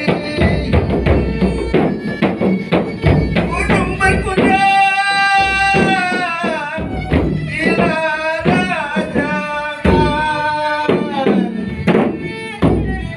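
Dendang singing: a voice holding long, wavering notes over frequent drum strokes.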